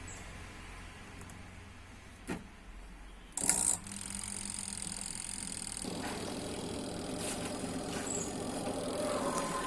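Washing motor of an LG semi-automatic washing machine humming steadily on the wash setting while the drum stays still, because the gearbox driven by its belt is stuck. There is a click about two seconds in and a brief louder clatter about three and a half seconds in, and from about six seconds the running sound grows fuller.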